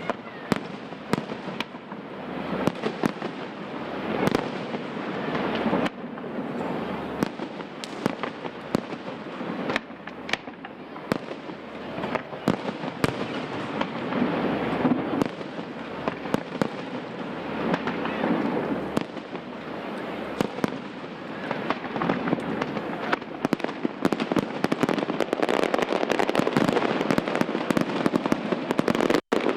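Aerial fireworks display: shells bursting in quick succession with crackling between the bangs. The bursts grow denser and louder near the end, with a brief dropout in the sound just before it finishes.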